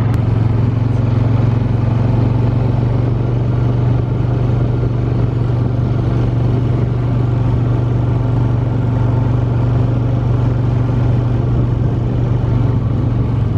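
Honda ATV engine running steadily while riding, a constant low hum at an even speed.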